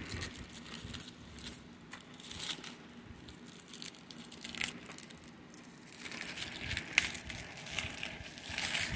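Clear plastic shrink wrap being torn and peeled off a DVD case, crinkling irregularly, louder in the last few seconds, with one sharp click near the end.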